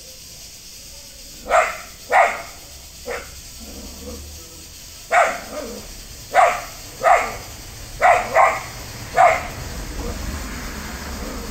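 A dog barking about nine times in short, irregular groups.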